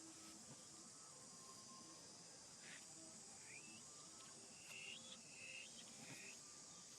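Faint, steady, high-pitched insect chorus, with a few short high chirps about three seconds in and again around five seconds in.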